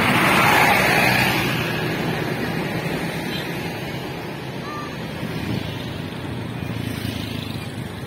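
A large tour coach drives past close by. Its engine and tyre noise is loudest in the first second or so and fades as it moves off, leaving steady street traffic with scooters passing.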